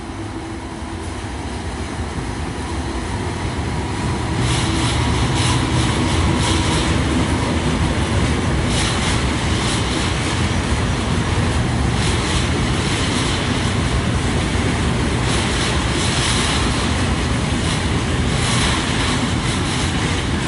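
Electric-hauled passenger train passing on a viaduct, its running noise growing louder over the first few seconds as it nears, then a steady rumble of the coaches rolling by with repeated clatter from the wheels.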